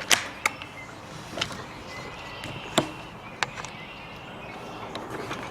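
A few sharp, irregularly spaced knocks and clicks, with faint bird chirps in the background.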